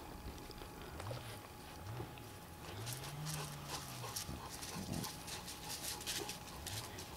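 Chow Chow puppy's paws crunching on gravel as it walks, a run of quick crackling steps from about three seconds in. Several low grunts that rise and fall in pitch come before and among the steps.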